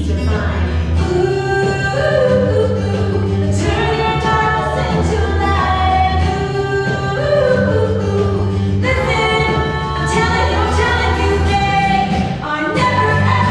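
A Christian song: several voices singing together over a band, with a bass line that steps from note to note every second or two.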